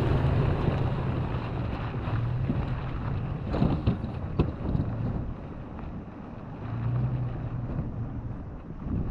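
A vehicle driving: a steady low engine drone under rushing wind noise on the microphone, with a few short knocks about halfway through.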